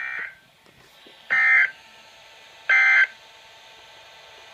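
NOAA Weather Radio EAS end-of-message data code: three short buzzy bursts about a second and a half apart, the first quieter than the other two, marking the end of the broadcast message. Faint radio hiss between and after the bursts.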